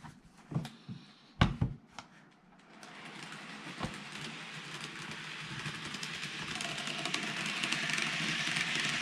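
N gauge model train (TOMIX JR 103 series set) running on layout track as it approaches, its wheels and motor making a steady hissing running noise that starts about three seconds in and grows steadily louder. A few sharp knocks come before it, the loudest about a second and a half in.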